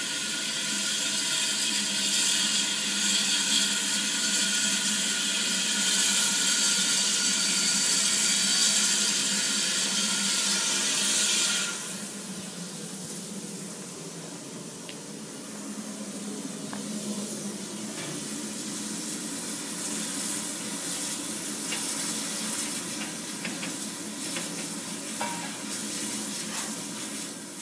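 1919 Hawthorn Leslie industrial saddle-tank steam locomotive letting off a loud, steady hiss of steam as it comes in, which cuts off suddenly about twelve seconds in. After that a quieter low rumble remains, with a few faint clicks.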